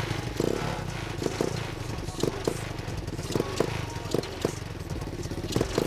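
X18 pocket bike's small engine running steadily on a newly fitted stock carburetor, with several sharp knocks or clicks over it.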